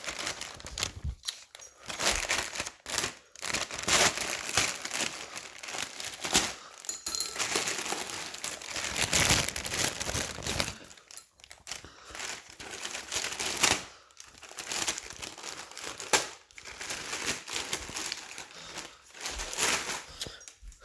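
A packaging bag being handled and opened, crinkling and rustling in irregular bursts, with some tearing.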